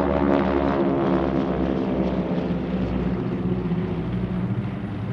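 Three North American T-6/SNJ Texans in formation passing overhead, their 600-horsepower Pratt & Whitney R-1340 radial engines and propellers running together in one droning, rasping sound. It is loudest about a third of a second in, then fades slowly as the formation pulls away.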